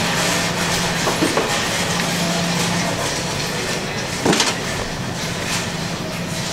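Shopping trolley rolling and rattling over a supermarket floor, with a couple of sharper clacks about one and four seconds in, over a steady low hum.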